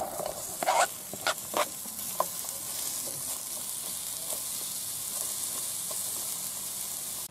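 Sliced onions sizzling steadily in hot olive oil in a frying pan, with a few scrapes and taps of a knife in the first couple of seconds as they are pushed off the cutting board and stirred.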